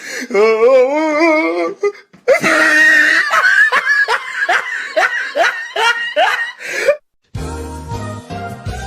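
A string of meme sound-effect clips: first a wavering, wobbling voice for about two seconds, then a few seconds of laughter in short repeated bursts, then, after a brief gap, a music snippet with deep bass.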